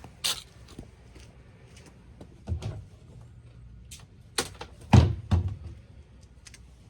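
A few scattered knocks and clunks of hard objects, the loudest a heavy thud about five seconds in, followed by a second clunk.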